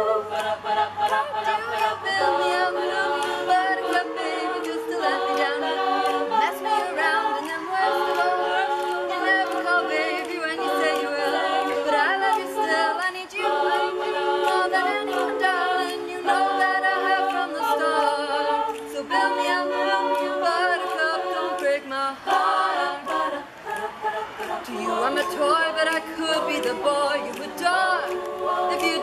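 Women's a cappella group singing unaccompanied in close harmony, the backing voices repeating chords in a steady rhythm under the melody.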